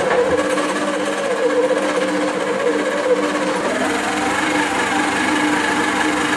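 Electric stand mixer running steadily at low speed, its motor giving a constant hum, mixing flour and water into bread dough at the first stage of kneading.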